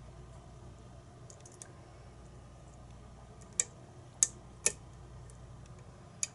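Lock pick and tension wrench working the pins of a challenge lock: faint metallic ticks, then four sharp clicks in the second half.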